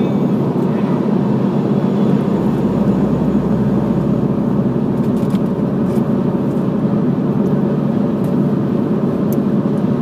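Steady road and engine noise heard inside the cabin of a Mini Cooper while it drives along, with a deeper low rumble for a few seconds in the middle.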